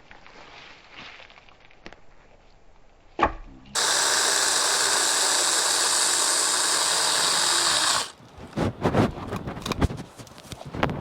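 Saker mini battery-powered chainsaw running at a steady speed for about four seconds, starting and stopping abruptly on the trigger. A sharp knock comes just before it starts, and a run of irregular knocks and crackles follows after it stops.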